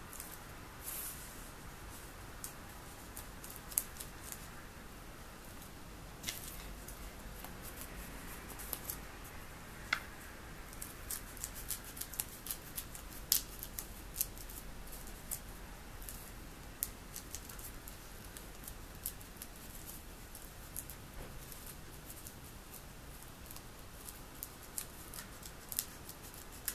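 Scissors cutting thin polyethylene foam underlayment: a long run of short, irregular snips, some crisp and sharp, with small pauses between cuts.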